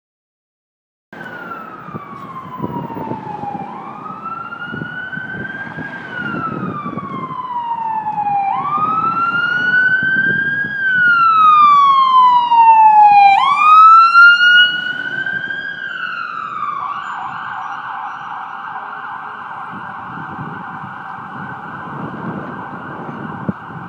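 Emergency vehicle siren in a slow wail, rising and falling about every two and a half seconds. It grows louder to a peak past the middle, then switches to a rapid yelp. Traffic rumble runs underneath.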